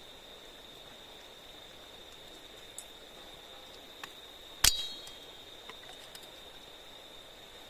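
Insects droning steadily on one high pitch, with a single sharp knock a little past halfway and a few faint clicks.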